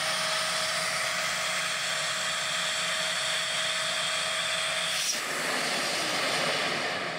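Siemens Green Power Edition vacuum cleaner running with its hose sealed by a vacuum gauge, straining under about 2000 mm of water of suction with a steady high whine. About five seconds in, the seal comes off with a click: the whine's tones drop out and give way to a rush of air through the open hose.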